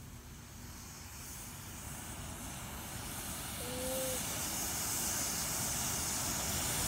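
Large homemade potassium nitrate and sugar smoke bomb burning with a steady hiss that grows steadily louder over the first few seconds as the charge gets going.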